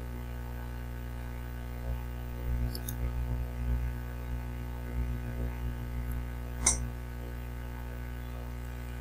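A steady low electrical hum, with a single sharp mouse click near the end as the presentation is advanced to the next slide.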